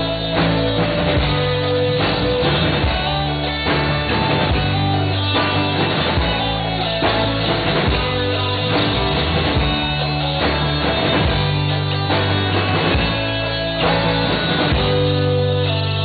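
Live rock band playing: electric and acoustic guitars over a drum kit. Near the end the drum hits stop and the guitar chords ring on.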